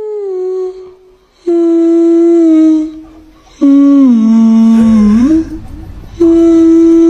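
A voice humming a slow, wordless tune in four long held notes; the third dips lower and slides back up.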